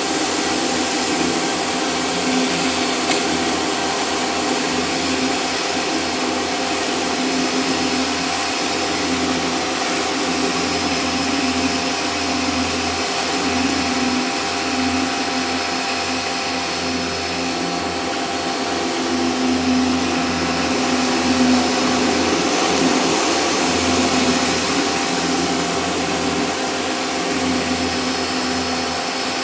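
Sun Joe pressure washer running steadily, its motor and pump whine mixed with the hiss of water spraying through a 13-inch rotary surface cleaner on a concrete driveway.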